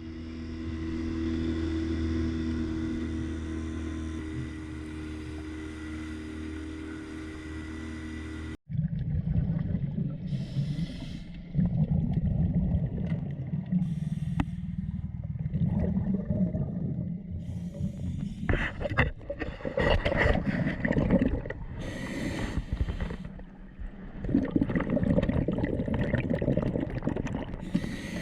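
Audio from a camera underwater: a steady low hum for about eight and a half seconds, then, after an abrupt cut, irregular rumbling and sloshing of water moving against the housing, with louder surges.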